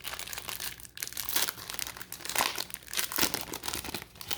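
Plastic wrapper of a trading-card pack being torn open and crinkled by hand: a dense run of crackling and rustling with many sharp little crackles.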